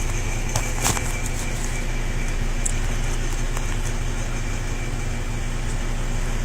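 Steady low mechanical hum, like an engine idling or a shop fan running, with a few light clicks about a second in.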